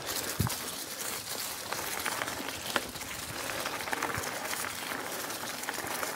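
Mountain bike rolling along singletrack: steady tyre noise with scattered clicks and rattles from the bike, and a low knock about half a second in.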